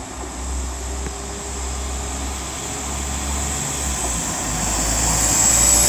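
West Midlands Railway Class 172 Turbostar diesel multiple unit pulling away from the platform, its underfloor diesel engines running with a deep rumble that grows steadily louder as the train draws nearer.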